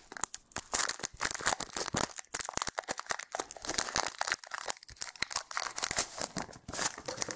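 Foil Pokémon booster-pack wrapper crinkling and tearing as it is ripped open by hand, a dense, irregular run of small crackles.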